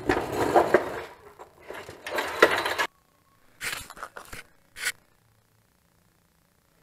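Scraping and rubbing handling noise with a few light metallic clinks for about three seconds. It cuts off abruptly, and the rest is silence broken by three short knocks.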